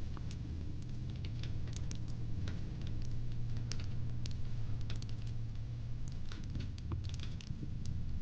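Fire-pit fire crackling: irregular sharp pops and snaps over a steady low rumble.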